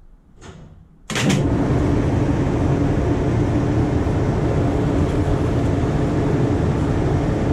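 Trolley car New Jersey #26 being switched on: about a second in, its onboard electrical machinery starts suddenly with a loud, steady mechanical hum and rush that keeps running.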